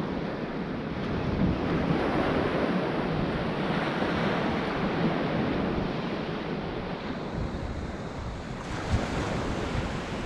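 Sea surf washing onto a beach, a steady rush that swells and eases, with wind buffeting the microphone in low rumbles.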